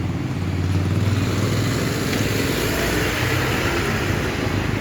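Motor vehicle engine running steadily, a low hum with rapid even pulsing, under a constant rush of road noise.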